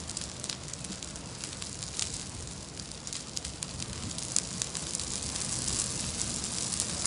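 Dry pine Christmas tree burning as a tall column of flame: a steady rush of fire with many sharp crackles and pops, growing louder about halfway through.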